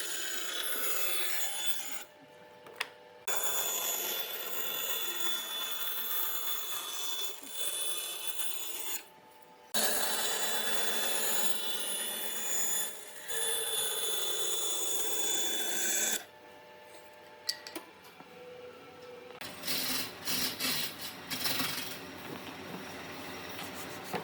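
A power tool working wood, with a steady whine over coarse rasping, in several stretches that start and stop abruptly. Near the end come lighter scraping and scattered knocks.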